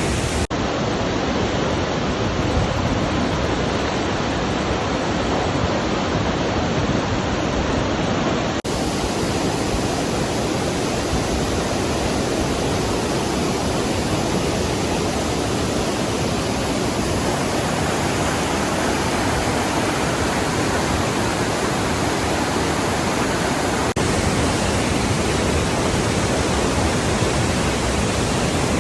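Nauyaca waterfall's falling water: a loud, steady rush. Its tone shifts abruptly a few times, at about half a second, eight and a half and twenty-four seconds in.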